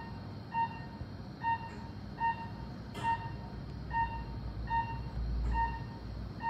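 Operating-room patient monitor beeping in short, identical tones a little faster than one a second, the pulse beep that follows the patient's heartbeat, over a low hum.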